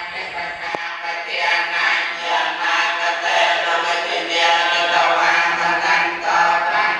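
Buddhist monks chanting together in unison, a group of male voices on a steady low pitch, the chanted phrases swelling and falling every second or two.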